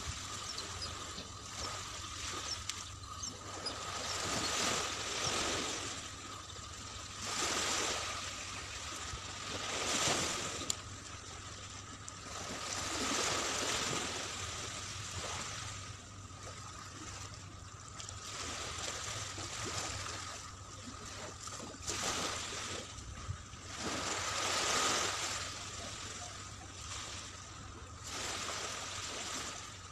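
Small sea waves washing onto a sandy beach, swelling and fading every few seconds, with a thin steady tone underneath.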